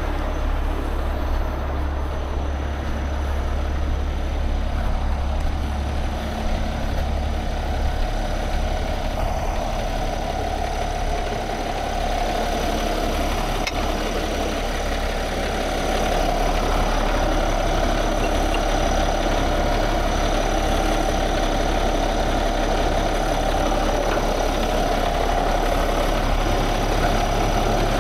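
Heavy truck's diesel engine idling steadily with a low rumble, a little louder from about halfway through.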